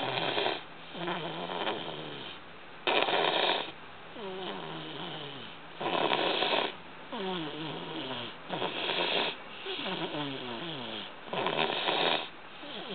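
A 13-month-old toddler snoring loudly in his sleep: five loud, rasping snores about three seconds apart, with softer breaths between that fall in pitch.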